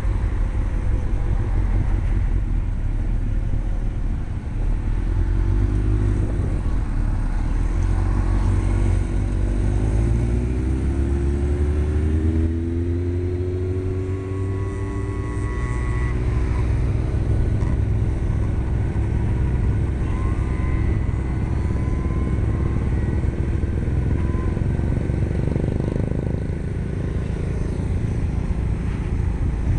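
Motorcycle engine running at road speed under heavy wind rumble on a helmet-mounted microphone, with other motorcycles riding close ahead. The engine pitch rises as the bike accelerates, most plainly about ten seconds in.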